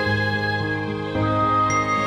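Soft background music: sustained instrumental chords, with a change of chord about a second in.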